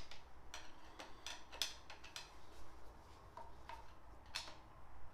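Faint, scattered metal clicks and ticks from a hook tool and screwdriver prying at a part in a steering wheel and column, a few separate taps a second or so apart.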